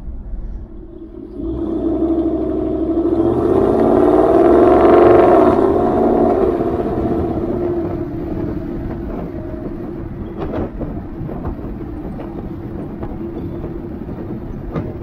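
Exhaust note of a 2019 Ford F-150 through a Corsa cat-back exhaust, with the stock resonator still in place, heard near the dual tips. It swells over a few seconds as the truck pulls, loudest about a third of the way in, then eases into a steady drone.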